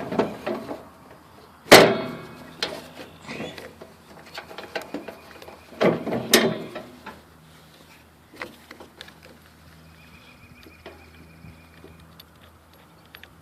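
Clunks and knocks of a lawn tractor battery being set into place and handled, with two louder thuds, one a couple of seconds in and one about six seconds in, among smaller clicks and rattles.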